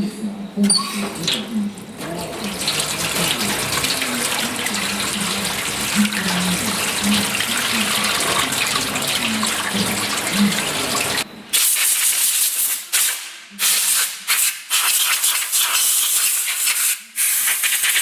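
A steady, loud rushing hiss of a pressurised spray. About two-thirds of the way through it breaks into a run of short hiss bursts with brief pauses between them.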